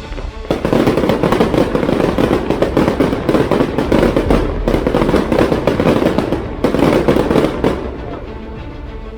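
Fireworks going off in a dense, rapid crackle, starting about half a second in, with a brief break about six and a half seconds in, then dying down near the end.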